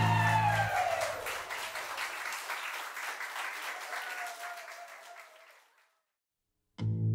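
A group of people clapping as the last sung note of a song dies away; the applause thins out and fades to silence. Right at the end a guitar-backed song starts.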